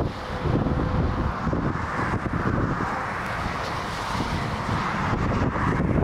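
Storm wind buffeting the microphone, with the steady drone of an approaching twin-turboprop airliner underneath.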